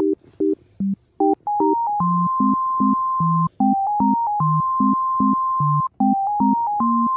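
Background music: a simple synthesizer tune, long held melody notes over a short, bouncing bass line, with a brief break about half a second to a second in.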